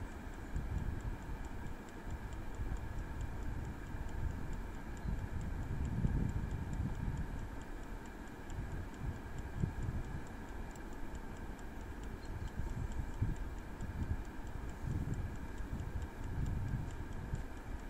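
Prego air fryer cooking: its mechanical timer ticks quickly and evenly over a steady whir from the fan. An irregular low rumble of wind on the microphone runs underneath and is the loudest part.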